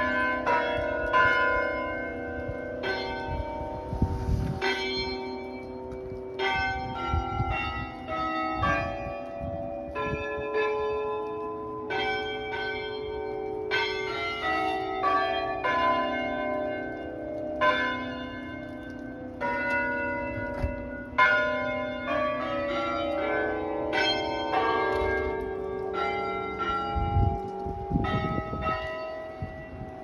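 Tower chime bells playing a tune: single bells struck one after another, about one or two notes a second, each ringing on and overlapping the next.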